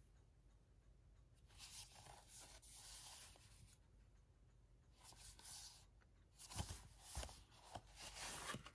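Faint handling of a 4K Blu-ray package: a cardboard slipcover and plastic keep case sliding and rubbing together, then a few sharp clicks and knocks of the case near the end.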